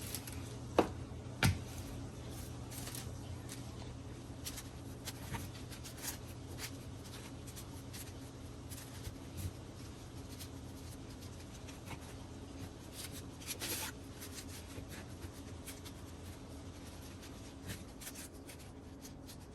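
Raw chicken wings being set down one by one on a parchment-lined baking tray: scattered soft taps and paper crinkles, the sharpest about one and one and a half seconds in and a small cluster a little past halfway, over a steady low hum.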